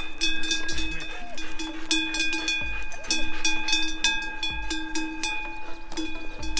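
Background music with held chords over a steady beat.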